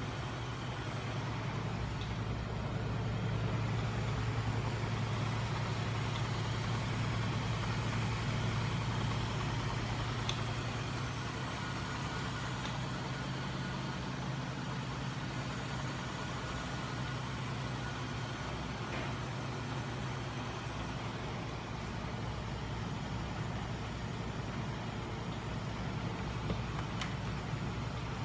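Homemade electric-motor-driven crank-and-linkage magnet machine running steadily, spinning its scooter-motor generators: a continuous low hum, a little louder for a few seconds near the start.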